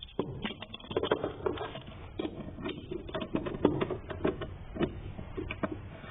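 Hand work on a car's air intake hose: a run of irregular light clicks and knocks, a few a second, from tools and parts being handled.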